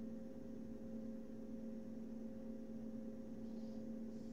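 Steady electrical hum with two constant tones, one low and one a little higher, over faint background hiss.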